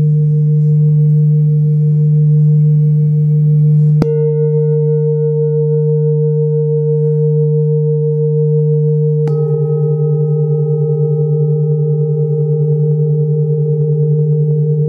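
Large hand-hammered Tibetan singing bowls ringing with a deep, steady hum. A bowl is struck with a padded mallet about four seconds in and again about nine seconds in, and each strike adds new, brighter ringing tones over the sustained drone. The deep tone pulses slowly in the second half.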